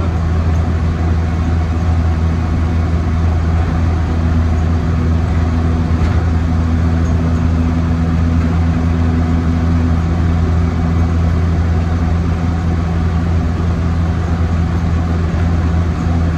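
1952 Land Rover Series One 80-inch's 2.0-litre four-cylinder petrol engine running at a steady cruise, a constant low drone heard inside the cab. Road noise rides along with it.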